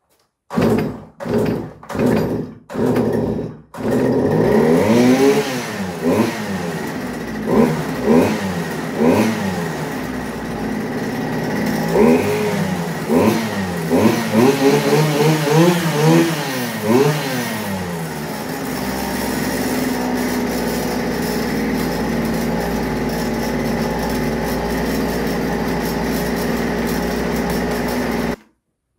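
Stihl FS 120 brush cutter's two-stroke engine, freshly cleaned and adjusted. It gives four short bursts as it is started, then catches and runs. The throttle is blipped up and down repeatedly, then the engine runs steadily before stopping suddenly near the end.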